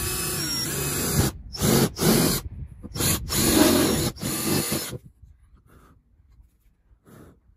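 DeWalt cordless drill with a step drill bit cutting through a Sprinter van's sheet-metal roof, running in three spurts with short pauses and stopping about five seconds in.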